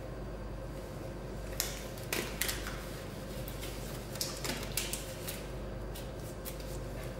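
Thin disposable gloves being pulled onto hands: a run of sharp snaps and crinkles of thin plastic, starting about a second and a half in, over a steady low hum.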